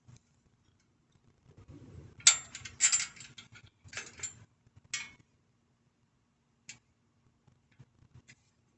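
Bicycle roller chain clattering and clinking against the sprocket and frame as it is slipped off, a burst of metallic rattles over about three seconds followed by a few single clicks.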